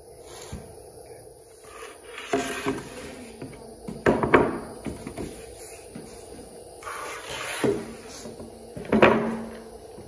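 Heavy pressure-treated timbers being shifted and set down on a concrete slab: a series of wooden knocks and scrapes, the loudest about four seconds in and again near the end.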